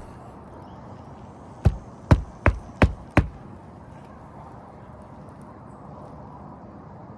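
Five quick, sharp hammer strikes of a roofing hatchet driving a nail flush into an asphalt shingle, a little under half a second apart, about two seconds in.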